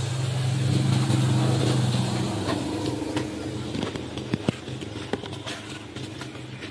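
A motor vehicle's engine running nearby with a steady low hum, loudest about a second in and then fading away. A couple of sharp clicks come about four seconds in.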